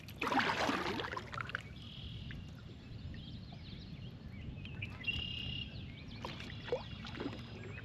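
Water splashing at a kayak for about a second near the start, then low steady water and wind noise with a few faint bird calls.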